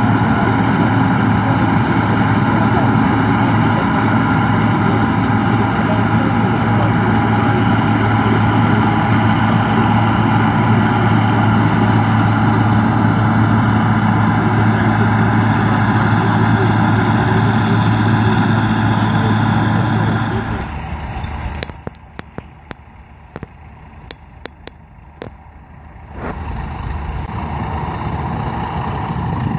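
Bizon combine harvester running steadily while harvesting wheat: a loud, even engine and threshing drone with a strong low hum. About 20 seconds in it drops away to a much quieter stretch with a few clicks, and near the end a steady engine sound returns at a lower level.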